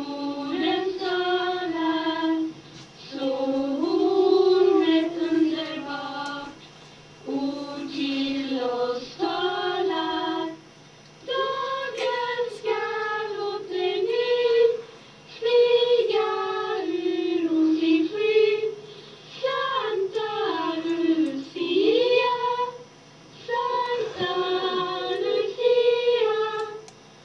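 A small group of girls singing a Lucia song unaccompanied, in phrases broken by short pauses for breath.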